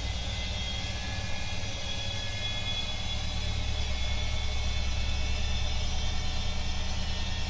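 Bosch Maxx 7 front-loading washing machine in its final spin: a steady low rumble with a thin high whine, getting a little louder about four seconds in. The whine is the motor bearing noise that the owner points out in the last spin.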